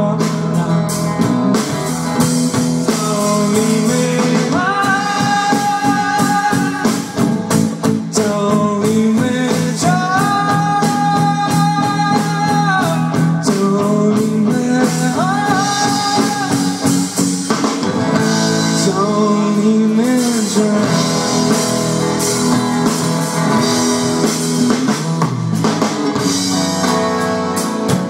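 Live rock band playing: acoustic and electric guitars, bass guitar and drum kit, with long sung notes held over the band several times.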